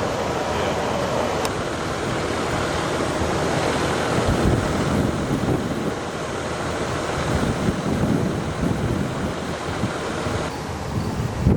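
Strong gusty wind buffeting the microphone over a steady rushing noise. The high hiss drops away near the end.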